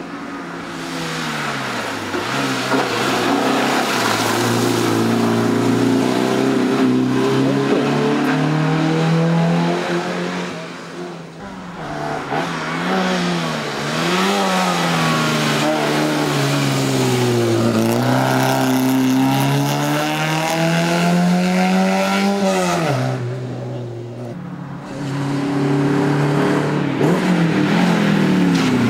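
Small historic rally cars passing one after another at full effort, each engine's pitch climbing and dropping repeatedly as it revs and changes gear. There are brief lulls between cars, about halfway through and again near the end.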